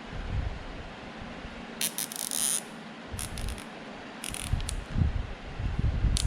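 Nylon zip ties being pulled tight around a fuel pump assembly, their ratchet teeth clicking in several short, rapid runs, with some handling bumps between.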